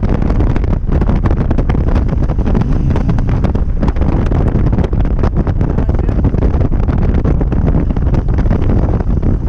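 Steady, loud wind rush and buffeting on the microphone of a moving motorcycle, with the low rumble of the ride underneath.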